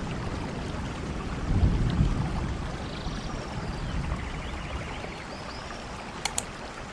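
Forest stream water running steadily, with faint high chirps over it. Two sharp clicks come close together near the end.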